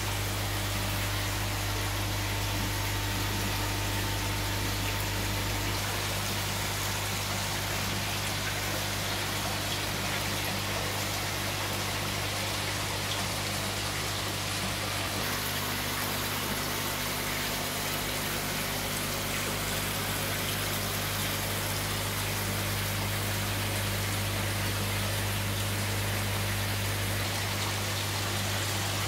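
Aquarium aeration and filtration: a steady rush and bubbling of water over a low, steady pump hum.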